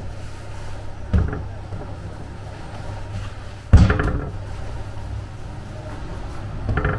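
Balls of bread dough thudding down onto a floured wooden dough tray, three times, the middle one loudest, over a steady low hum.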